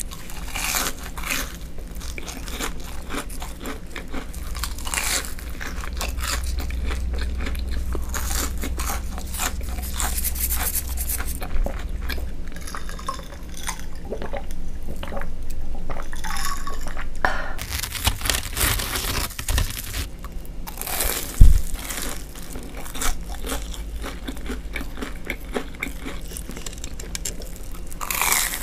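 Close-up crunching and chewing of deep-fried breaded sticks, crisp bites one after another, with swallows of a drink partway through. One sharp knock about two-thirds of the way in is the loudest sound.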